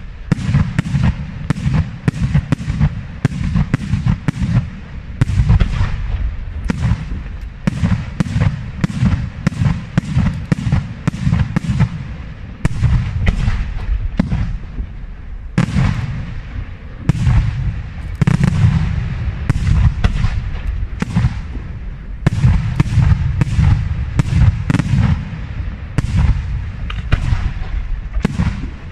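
Aerial firework shells bursting in a continuous rapid barrage, several sharp bangs a second over a deep, unbroken rumble.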